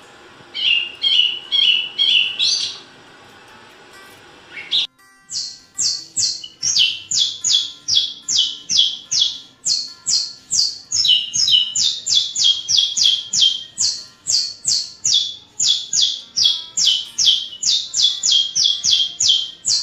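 Recorded songbird calls: a few short chirps at first, then, after a sudden cut just before five seconds in, a long run of repeated high notes, each sliding down in pitch, about two or three a second.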